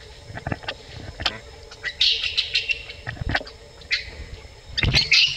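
A macaque squealing in short high-pitched bursts, about two seconds in, again near four seconds and loudest near the end, with a few dull thumps and knocks in between.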